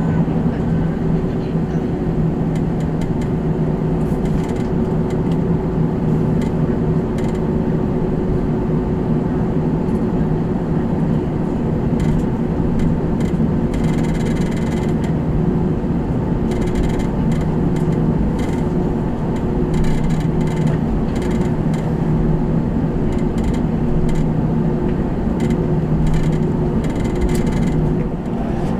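Cabin noise of an Airbus A321 taxiing: a steady hum from the engines and airframe with a low drone and a higher whine held level throughout, and scattered light rattles now and then.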